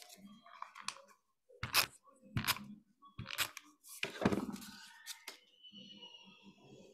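Paper and cardstock being handled and pressed down on a work surface: about half a dozen short, sharp rustles and taps, spread over several seconds.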